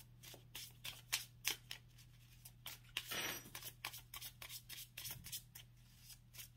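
Tarot cards being shuffled and handled: a quiet string of quick soft card clicks and flicks, with a brief rustling stretch about three seconds in.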